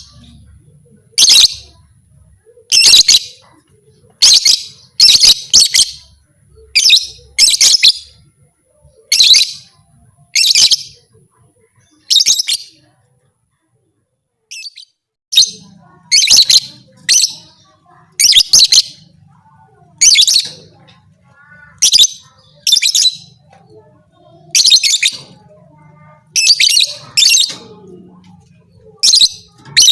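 Lovebird giving loud, harsh, high-pitched chirping calls in short bursts about once a second, with a pause of about two seconds midway.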